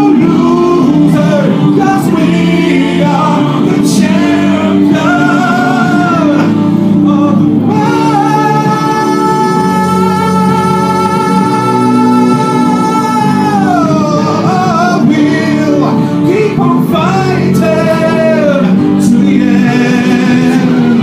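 A man singing into a microphone over backing music, a loud pop-style vocal performance. About eight seconds in he holds one long high note for some five seconds, then lets it slide down.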